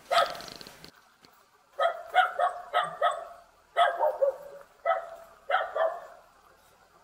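Young Jindo dog barking repeatedly, in quick runs of two to five barks with short pauses between the runs.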